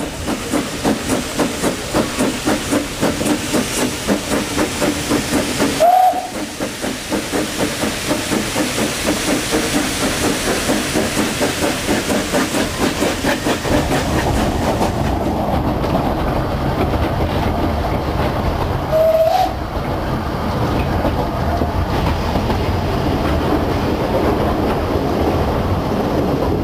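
Narrow-gauge steam locomotive working a train, with a regular chuff of exhaust beats a few times a second and a brief high squeal twice. In the second half the beats give way to a steadier rumble of the train running.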